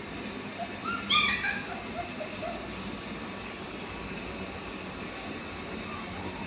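Rottweiler puppy giving a short run of high yelps about a second in, over steady background noise.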